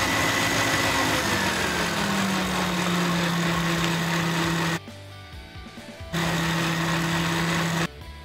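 Electric stand mixer's motor running while it beats pumpkin scone batter as flour goes in, its pitch dropping over the first two seconds and then holding steady. It stops about five seconds in, then runs again for under two seconds and stops.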